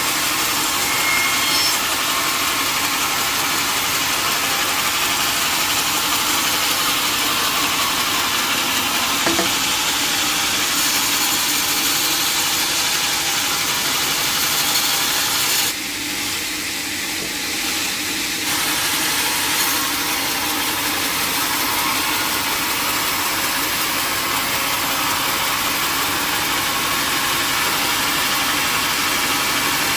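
Sawmill machinery running with a loud, steady, noisy drone, sawing teak. The sound drops a little for about three seconds around the middle, then comes back.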